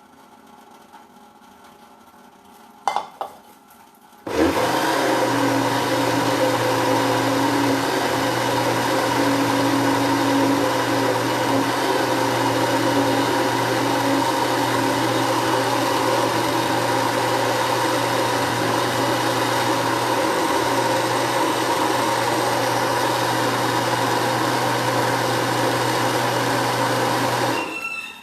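Two sharp clicks, then an electric blender switches on about four seconds in, runs at a steady loud hum for over twenty seconds, and cuts off just before the end.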